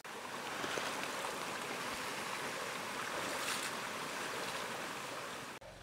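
Steady rushing sound of running water, starting and stopping abruptly.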